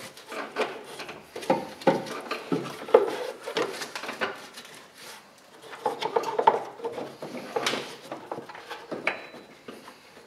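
Irregular rubbing, scraping and light knocking of a ribbed serpentine belt being fed by hand down through a car's engine bay, brushing against hoses and engine parts, with scattered clicks and taps.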